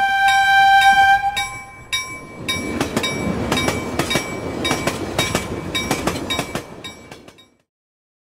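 A locomotive horn sounds for about two seconds as a train approaches, then the train rumbles past with a regular clatter of about three clicks a second. A chiming bell-like tone rings over it, and everything cuts off suddenly near the end.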